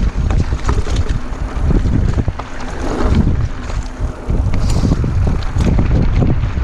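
Mountain bike rolling along a dirt trail: wind rushing over the action camera's microphone, with rattles and knocks from the bike over rough ground. It eases off for a couple of seconds in the middle.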